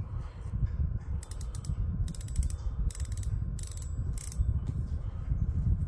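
Front drag of a KastKing Centron 4000 spinning reel clicking as it is worked by hand, in about five short runs of rapid ratcheting ticks.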